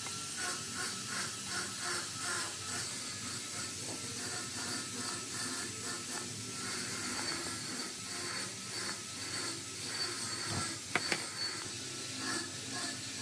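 Hands rubbing and working rubber inner-tube strips over a small part, a run of short rubbing strokes about two a second at first, then irregular, with one sharp click a little before eleven seconds in, over a steady hiss.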